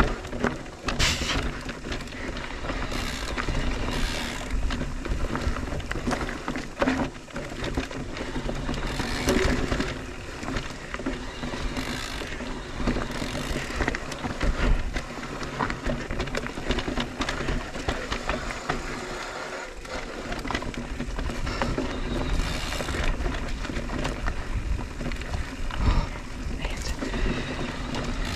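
A 2021 Mondraker Crafty Carbon R electric mountain bike ridden along a dirt trail: tyre noise with frequent clicks and rattles from the bike over bumps, and a steady low hum underneath.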